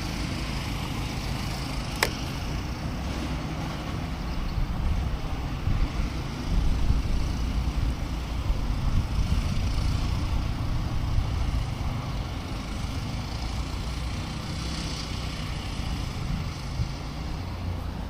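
Low outdoor rumble that swells and eases unevenly, like wind buffeting the microphone, with a single sharp click about two seconds in.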